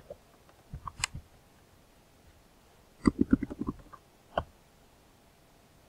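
A few short clicks at a computer, likely a mouse: one about a second in, a quick run of several clicks about three seconds in, and one more sharp click a second later.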